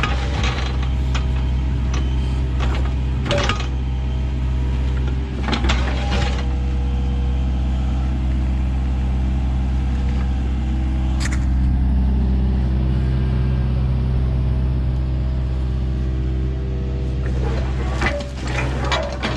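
Excavator diesel engine running steadily, with a few short knocks and clanks from the machine's work.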